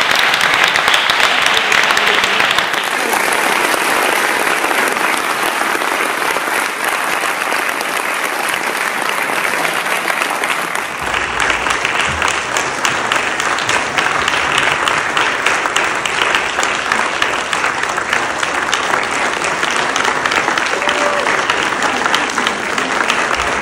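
Theatre audience applauding, with steady, dense clapping. The sound of the applause changes abruptly twice, about three and eleven seconds in.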